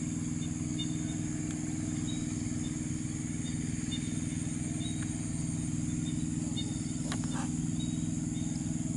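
A steady low mechanical hum, like a small engine running, under a continuous high insect drone with short repeated chirps. One sharp click comes about seven seconds in.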